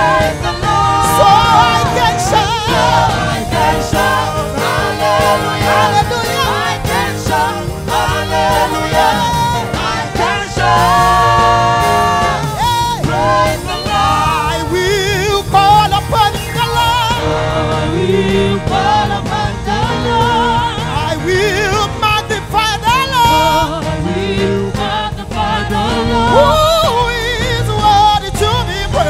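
Live gospel praise music: singers with microphones leading the song over an amplified church band.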